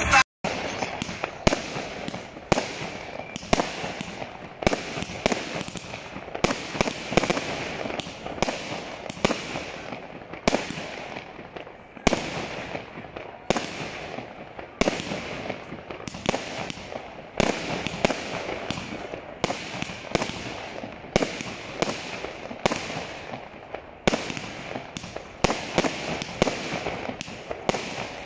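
Fireworks going off: a continuous, irregular run of bangs, a few a second, each trailing off into an echo.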